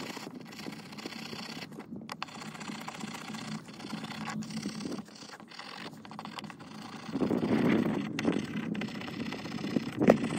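Small steel wire brush scrubbing rust off a skeleton key against a wooden board: a scratchy, rasping scrub with clicks. It gets louder about seven seconds in.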